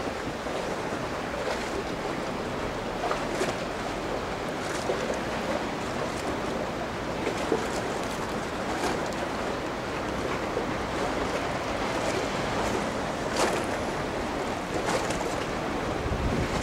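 Steady outdoor wind and water noise, with a few faint clicks scattered through it.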